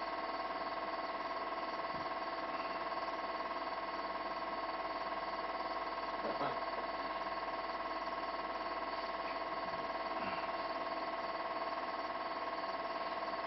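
Steady hum made of several fixed high-pitched tones, unchanging in level, with a faint short sound about six and a half seconds in.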